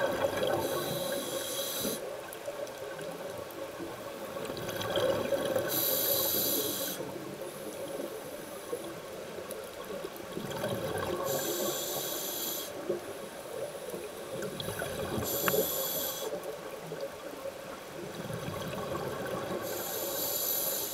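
Scuba diver breathing through a regulator underwater: the hissing rush of exhaled bubbles comes five times, about every five seconds, each lasting a second or so, over a steady low underwater hum.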